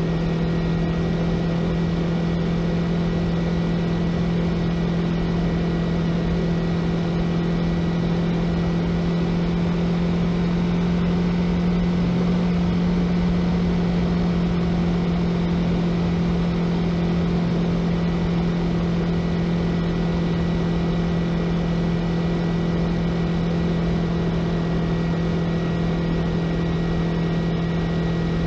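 Yamaha YZF-R3 motorcycle's parallel-twin engine running at a steady cruise, holding one even drone over a constant rush of noise.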